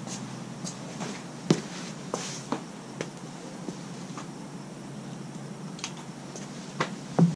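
Footsteps on a concrete shop floor and a scattering of short knocks and clicks as parts are handled on a truck frame, over a steady low hum.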